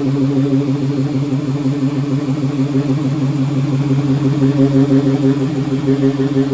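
Electric power sander running steadily on the car's body panel, a continuous humming drone that wavers slightly.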